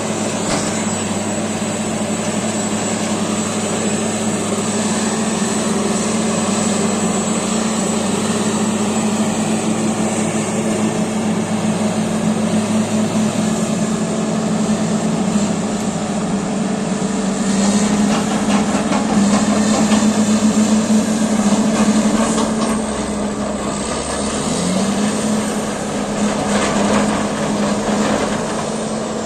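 Caterpillar D8T bulldozer's diesel engine running steadily at working revs, growing louder for a few seconds past the middle. About three-quarters of the way through its pitch sags briefly and climbs back, as the engine takes a load.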